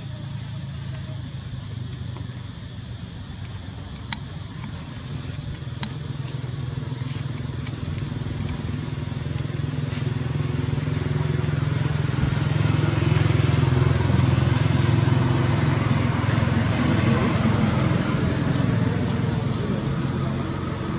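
Low, steady engine rumble of a motor vehicle, growing louder through the middle and easing near the end, over a constant high-pitched hiss; two faint clicks a few seconds in.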